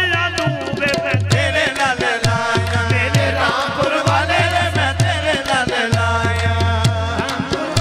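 Live qawwali music: harmoniums playing under a steady hand-drum beat and sharp clapping, with voices singing over it.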